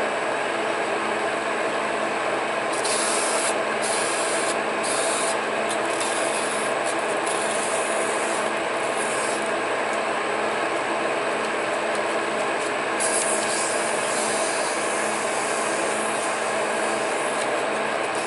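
Monarch metal lathe running steadily, with a steady rubbing, rasping noise over its hum, and short sharper hissing spells twice.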